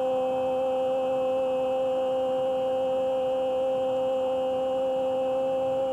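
A football commentator's drawn-out goal cry, one long 'gooool' held on a single steady high note, calling a goal just scored.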